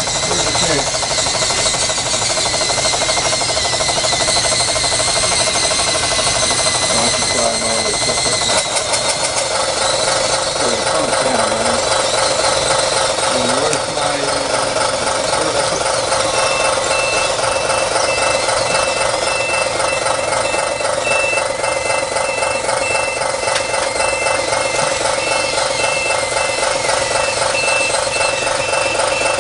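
Several radio-controlled scale bulldozers and loaders running together with steady diesel-type engine sound. From about halfway through, a backup alarm beeps at an even pace over the engines.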